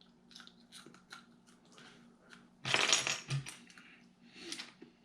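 A dried ghost pepper being bitten and chewed: a few faint clicks, then a loud crunch about three seconds in and a smaller one near the end.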